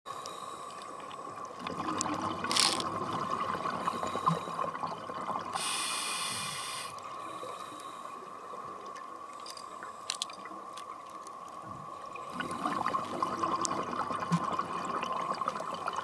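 Scuba breathing underwater through a regulator: a spell of exhaled bubbles about two seconds in and again about twelve seconds in, with a hissing inhalation around six seconds, over a steady high-pitched tone.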